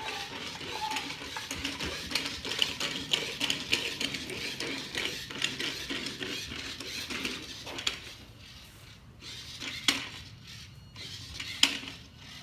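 Motorised plastic toy robot moving across a wooden floor: a busy rattle of small clicks and gear noise for about seven seconds, then quieter, with a few sharp clicks near the end.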